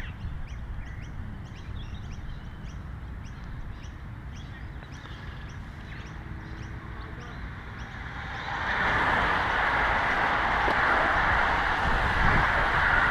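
Small birds chirping repeatedly over a low rumble. About eight seconds in, a loud, steady rushing hiss sets in and holds: a bunch of road-racing bicycles approaching and passing at speed.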